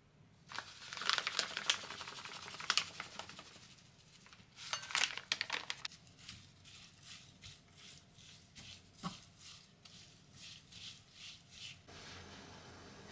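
Crinkling and rustling of a food packet being handled, then a run of soft, evenly spaced taps, about two a second, as ground sesame is shaken out over greens in a glass bowl. A steady hiss takes over near the end.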